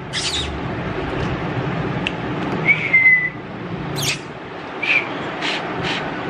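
A dog whines once, a thin high note falling slightly for about half a second in the middle, with a shorter high note and several short breathy sniffs later, over a steady background hum.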